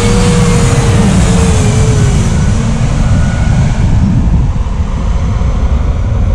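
AirAsia Airbus A320-family jet airliner passing low overhead on landing approach: loud jet engine rumble with a whine that drops in pitch as it passes, easing off near the end as it flies on toward the runway.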